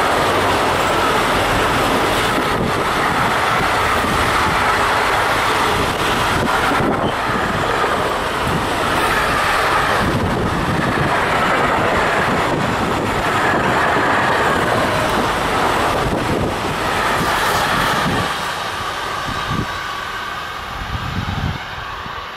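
Intermodal freight train of pocket wagons loaded with semi-trailers and containers rolling past: a steady rumble and rattle of wheels on rail. It fades from about eighteen seconds in as the last wagons pass and the train moves away, with a few knocks near the end.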